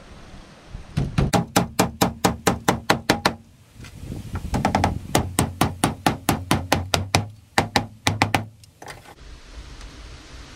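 Hammer driving nails into wood, about five quick blows a second in two long runs with a short pause between, and one last blow near the end.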